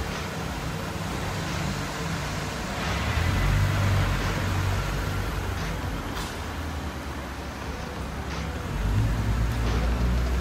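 Toyota Crown Royal's 3.0-litre V6 running through an aftermarket muffler as the car pulls away. A low exhaust rumble swells about three seconds in and again near the end.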